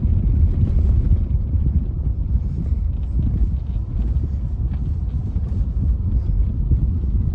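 Steady low rumble of a car driving along a street, heard from inside the cabin: engine and tyre noise.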